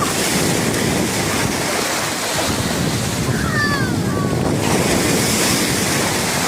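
Sea waves washing onto the shore, a steady rushing of surf, with wind buffeting the microphone.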